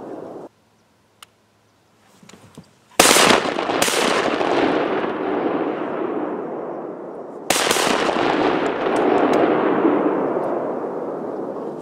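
Three shotgun blasts fired at ducks over a pond: two close together about three seconds in and a third about four seconds later. Each is followed by a long fading tail.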